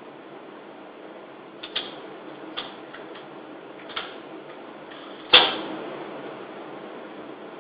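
A single air rifle shot, one sharp crack about five seconds in with a short ring after it. A few fainter clicks come before it, over a steady hiss.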